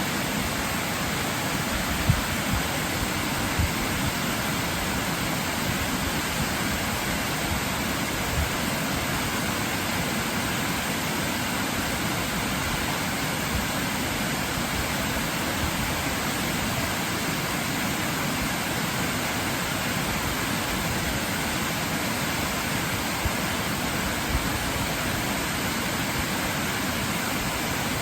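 Waterfall: falling water rushing steadily as an even hiss, with a few brief low thumps.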